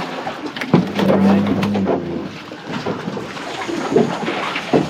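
Wind and water noise aboard a small fishing boat, with scattered knocks and clatter on the deck and a short low hum about a second in.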